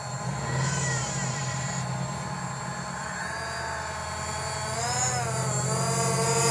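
Camera drone's propellers whirring, with a whine whose pitch wavers and bends about five seconds in, over a low steady hum.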